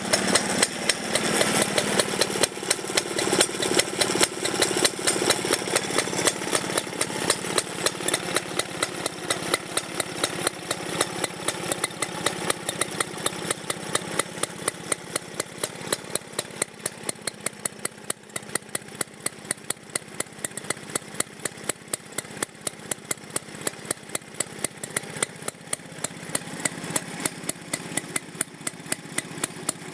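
Villiers engine of a Ransomes Minor Mark 7 petrol lawnmower running at a slow, even beat of sharp firing pulses, a few a second. It grows quieter through the middle and comes back up a little near the end.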